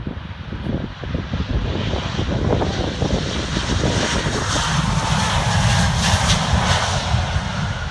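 Jet airliner passing close by: the engine roar swells to a peak in the second half, with a thin whine that drops slightly in pitch as it goes past. Wind buffets the microphone throughout.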